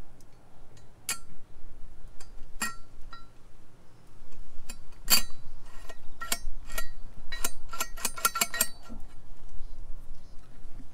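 Metal VGT vanes and unison ring clinking inside a 6.0 Powerstroke turbo's turbine housing as they are fitted by hand. Sharp metallic clinks, each with a brief ring: a few spread out at first, then a quick run of them in the second half.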